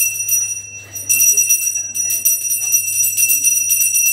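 Pooja hand bell rung rapidly and continuously in worship, its bright metallic ring sustained by quick repeated strokes. The ringing thins briefly just before a second in, then carries on at full strength.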